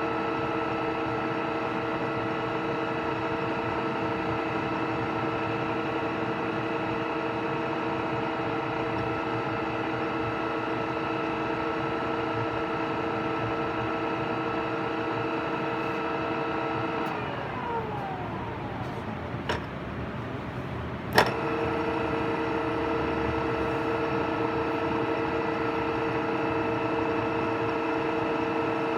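Oya RE2-1300A radial drilling machine running with a steady gear whine of several tones. About two-thirds of the way through, the whine glides down and dies away as the spindle drive winds down; a few clicks follow, then a sharp clack, and the machine starts up again with the same steady whine.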